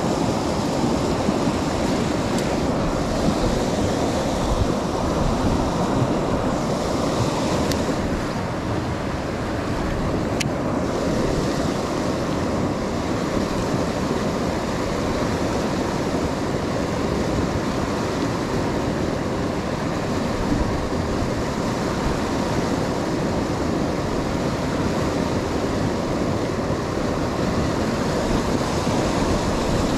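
Steady rush of water pouring over a low dam spillway and churning white below it.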